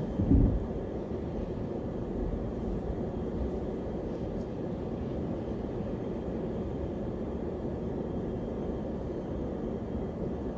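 Steady low road and engine rumble heard inside a moving car's cabin, with a brief low thump just after the start.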